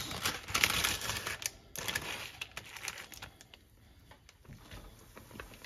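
Dry instant ramen and its plastic packet being handled over a pot of boiling water: dense, crisp crackling for nearly two seconds that breaks off sharply, then fainter scattered clicks and ticks.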